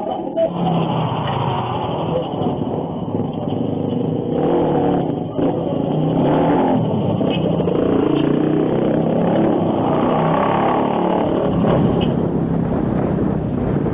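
A motor vehicle's engine running as it drives, its pitch shifting up and down with speed.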